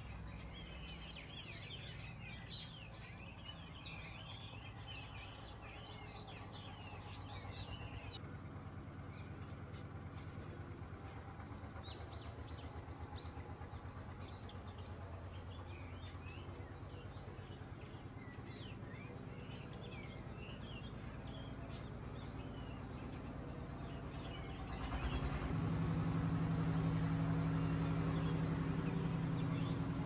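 A flock of small birds chirping and twittering in bare treetops, busiest in the first eight seconds and sparser after, over a low steady rumble. About 25 seconds in, a steady engine drone comes up and becomes the loudest sound.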